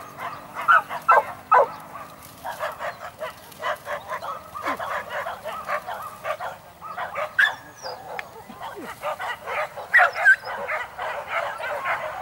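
Hunting dogs barking and yelping: a few loud yelps in the first two seconds, then a dense run of many short overlapping calls from several dogs, a pack giving tongue as it is let go on a wild boar hunt.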